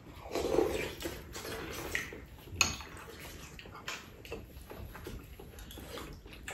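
Spoons and chopsticks clinking faintly against ceramic bowls and a pot during a meal, with a few sharper small clicks scattered through.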